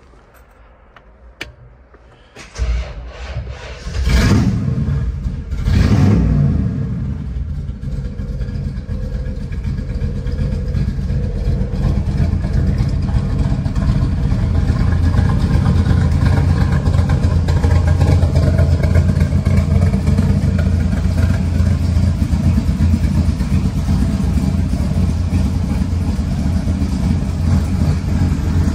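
1957 Chevrolet panel truck's 383 V8 with side-exit exhaust pipes starting up about two and a half seconds in, revved twice, then settling into a steady, loud idle.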